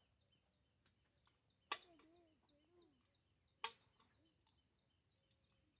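Two sharp clicks about two seconds apart from a hand-held manual jab seeder being worked into the soil, with faint bird chirps behind.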